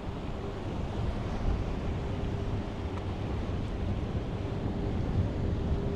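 Wind buffeting the microphone over the wash of ocean surf, with a faint steady hum that fades in and out.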